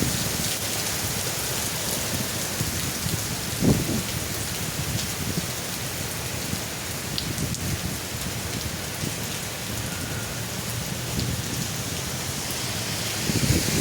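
Heavy rain falling steadily in a thunderstorm, with one brief low thump a little under four seconds in.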